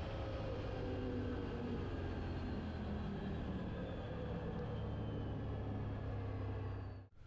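2019 Can-Am XMR 1000 ATV's V-twin engine running on the road as the machine slows from about 100 km/h, its pitch falling steadily, over road and wind noise. The sound cuts out abruptly near the end.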